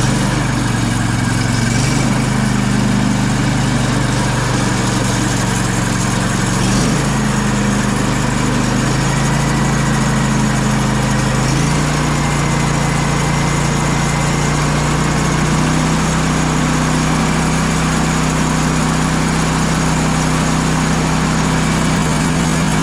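Sawmill's engine running steadily, its pitch shifting in steps a few times.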